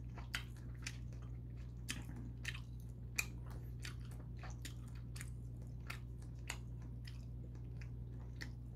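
A person chewing a mouthful of beef sirloin topped with kiwi close to the microphone: quiet, irregular wet clicks and squishes of the mouth, about three a second.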